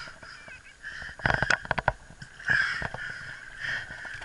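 A man breathing hard and rasping while he strains against a big fish on the line, with a quick run of sharp clicks and knocks about a second in.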